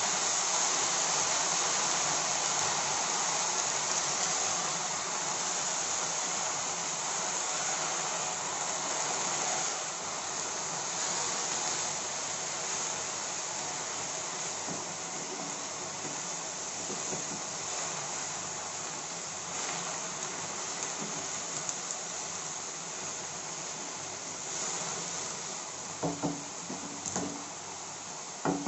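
Tandulja (amaranth) greens with sliced garlic sizzling steadily in hot oil in a kadhai, stirred with a wooden spatula, as the water from the greens cooks off. Near the end come a few sharp knocks as the spatula is tapped and put down.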